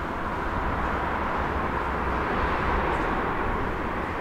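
Underground metro station ambience: a steady low rumble and hiss that swells a little midway and eases off near the end.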